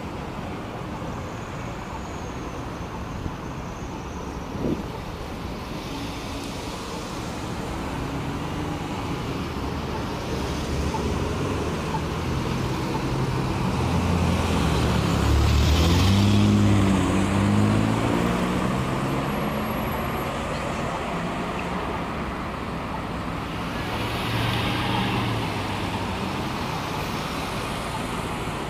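Road traffic passing through a city intersection, a steady hiss of cars and trucks going by. About halfway through, a pickup truck's engine passes close, swelling and then fading. A smaller swell comes near the end as another vehicle passes.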